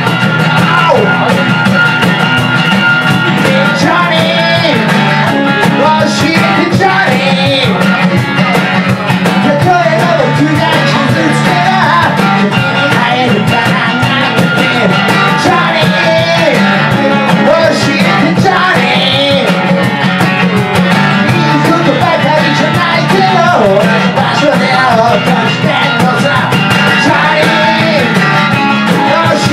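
A man singing live with a strummed acoustic-electric guitar, accompanied by a cajón.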